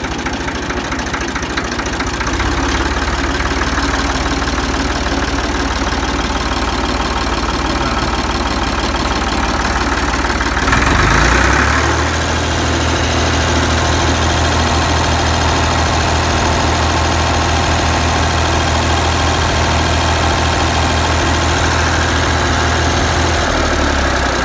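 Ford 2000 tractor engine running, stepping up slightly a couple of seconds in. About halfway it revs up to maximum RPM and holds there, then drops back near the end. It is held at top speed while the generator's charging voltage is checked with a new voltage regulator.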